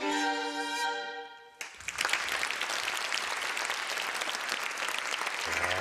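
Solo violin closing a piece on a held note, then audience applause breaking out about two seconds in and continuing.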